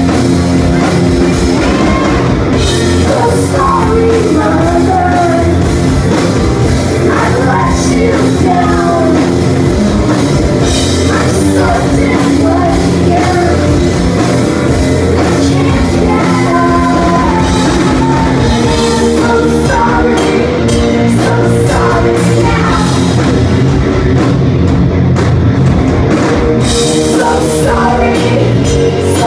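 A live rock band playing loud, with electric guitars, a drum kit with cymbals, and a woman's lead vocals, heard from the audience.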